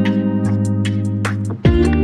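Background music with plucked guitar and sustained chords.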